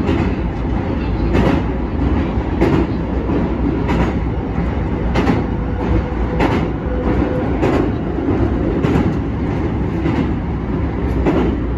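Hankyu Kobe Line electric commuter train running steadily across a steel truss bridge, heard from inside the front car: a continuous rumble with the wheels clacking over rail joints about once every 1.2 seconds.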